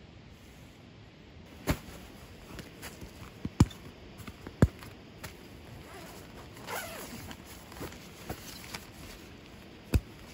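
A nylon gear bag being unstrapped and opened: a few sharp plastic clicks of strap buckles, with fabric rustling and a zipper running about two thirds of the way through.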